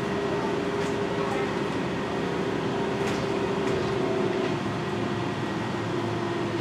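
NAW trolleybus running along a city street, heard from inside: a steady electric motor hum over road noise. The hum's pitch drops slightly about two-thirds through, with a few light clicks and rattles.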